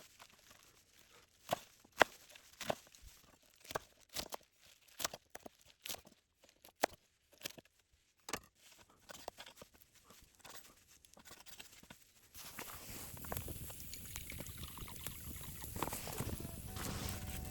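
Scattered light clicks and knocks of the pot, utensils and ingredients being handled. About two-thirds of the way through, a steady hiss sets in and slowly grows louder.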